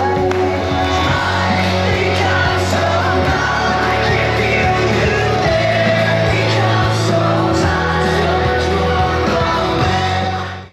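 Loud music with a singing voice over a heavy, steady bass line, cutting off abruptly at the very end.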